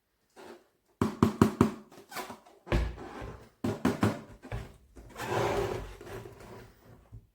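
A quick run of sharp knocks, then further knocks, thuds and rustling, like objects being handled in a small room.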